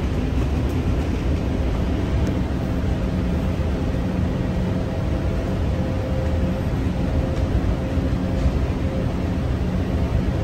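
Interior running noise of a Bukit Panjang LRT C801B (Innovia APM 300R) rubber-tyred people-mover car travelling along its concrete guideway: a steady low rumble with a faint, even hum.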